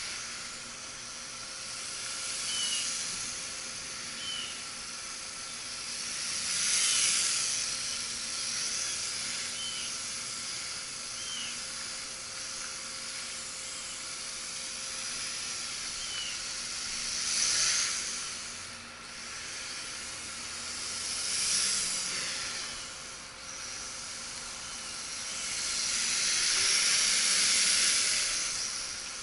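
Small quadcopter's motors and propellers whirring with a high hiss that swells louder several times as it flies past close by.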